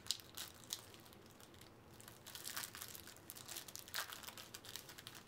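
Foil wrapper of a trading-card pack crinkling and tearing as it is opened by hand, a run of faint sharp crackles with a louder one about four seconds in, as the cards are drawn out.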